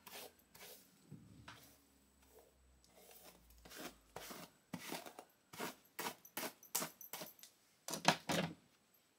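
Synthetic wig hair rustling as it is brushed and combed through with the fingers: a series of short scratchy strokes, sparse at first and then two or three a second from about four and a half seconds in, loudest near eight seconds.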